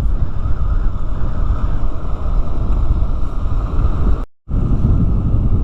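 Steady wind noise buffeting the microphone of a motorcycle rider riding at speed on the road, cutting out for a moment about four seconds in.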